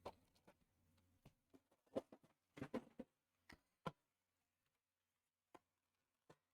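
Faint, scattered clicks and light rustling of packaging being handled as a trading card tin is opened, with a quick cluster of clicks in the middle and a few single ticks afterwards.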